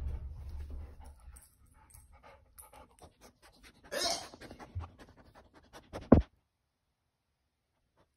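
Pit bull panting and sniffing right up against the microphone, with a stronger breathy burst about four seconds in and a sharp knock about six seconds in.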